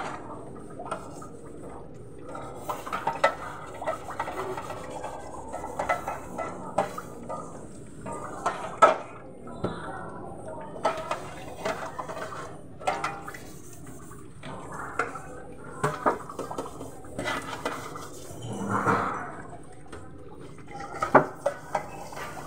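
Pots, pans and utensils being washed by hand in a sink: irregular clinks and clatters with scrubbing, and a short louder rush of noise about three quarters of the way through.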